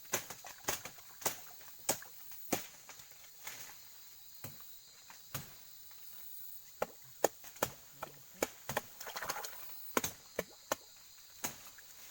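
Machete (parang) chopping: a string of sharp, irregular strikes, some in quick pairs.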